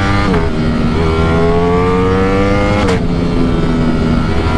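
Ducati Streetfighter V4's V4 engine accelerating hard through the gears. The revs climb steadily and drop sharply at two upshifts, one just after the start and one about three seconds in.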